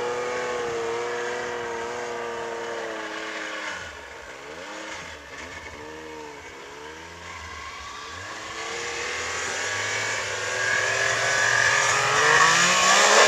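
Snowmobile engine running as the sled rides away, fading and wavering in pitch in the distance. It then grows steadily louder and rises in pitch as the sled comes back at speed.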